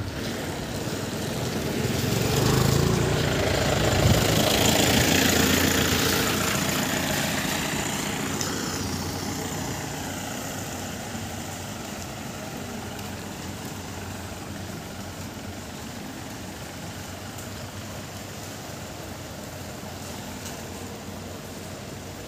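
A motor scooter passes on a wet road, its engine and tyre hiss swelling over a few seconds and fading out. After that an even hiss of wet outdoor noise stays.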